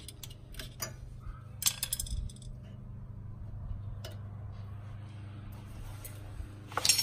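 Sharp metal clinks and ticks from a screwdriver and brake pads being worked against a car's brake caliper bracket. A few scattered clicks, a short cluster about two seconds in and a louder run of clinks near the end, over a steady low hum.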